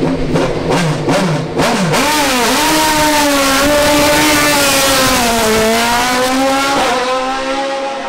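Sports-prototype race car engine revved hard at the start line, then accelerating away at high revs. The pitch climbs and drops back several times as it shifts up through the gears.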